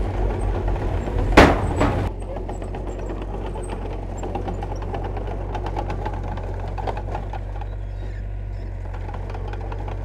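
Diesel engine of heavy earthmoving machinery running, with one loud bang about a second and a half in. About two seconds in the sound changes abruptly to a steadier, quieter engine drone.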